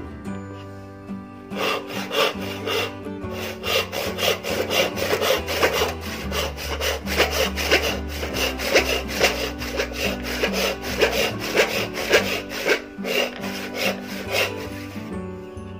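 Hand rip saw cutting through wood in quick back-and-forth strokes, about two or three a second. It starts about a second and a half in and stops near the end.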